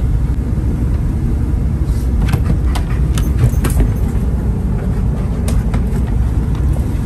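Road noise inside a moving van: a steady low rumble of engine and tyres, with a scatter of short clicks and knocks about two to four seconds in and again a little later.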